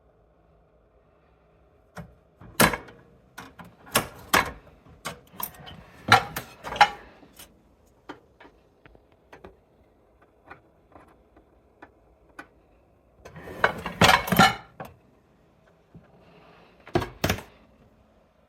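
Dishes, cups and cutlery clinking and knocking as they are handled, in two clusters of irregular sharp clicks over a faint low hum.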